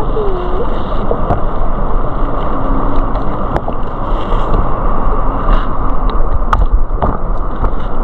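Flowing stream water heard through a camera held underwater: a loud, steady, muffled rumble, with scattered sharp clicks.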